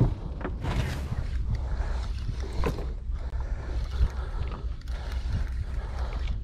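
Steady low rumble of a fishing boat at sea, with wind and water noise and a few short knocks, the clearest about two and a half seconds in.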